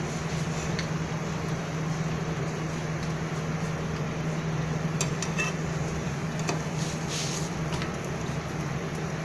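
Utensil clinking and scraping against a pan a few times, about halfway through, as bread slices are turned and toasted, over a steady low hum.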